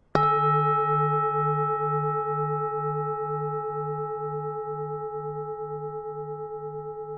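Temple bell struck once: a sudden strike, then a long ringing tone that fades slowly, its low hum pulsing about twice a second.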